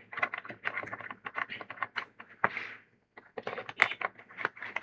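Pokémon trading cards being handled and shuffled together: a quick, irregular run of clicks and rustles, with a longer rustle about two and a half seconds in.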